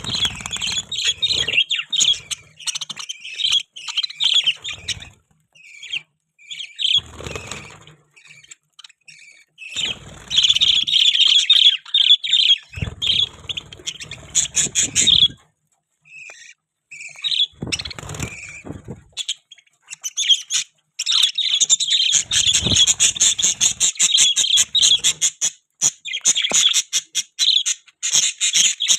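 Budgerigars chirping and warbling in bouts of a few seconds, broken by short pauses, then chattering without a break over the last third. Low thuds come with several of the bouts.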